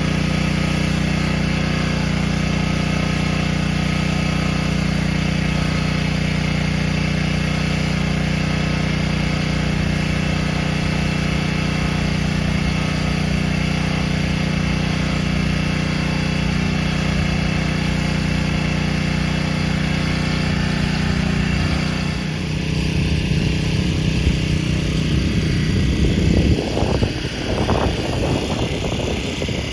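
Gas pressure washer's small engine running steadily. About three quarters of the way through, the steady hum breaks up into an uneven rushing sound.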